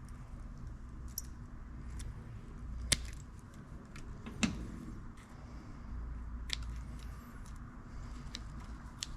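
Small clicks and light taps of fishing lures and hooks being handled. Two sharper clicks come about three and four and a half seconds in, over a steady low rumble.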